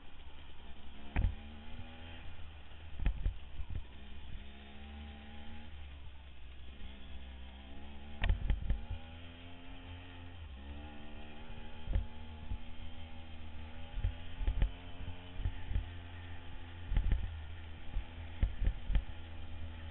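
Dirt bike engine running under load, its pitch climbing and dropping back several times as it shifts through the gears. Loud low thumps and knocks break in now and then over a steady low rumble.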